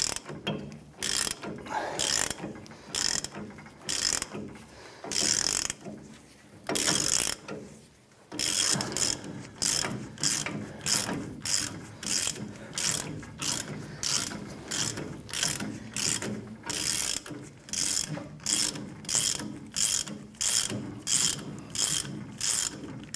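Hand ratchet clicking in repeated strokes as it turns the forcing screw of a bushing press tool, pressing a rubber bushing out of a leaf spring eye. The strokes are uneven at first, then settle into a steady rhythm of about two a second from about eight seconds in.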